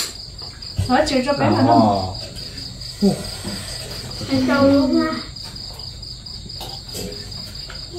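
Insects chirring in one steady high-pitched note that never lets up, with a person's voice calling out briefly about a second in and again around halfway through.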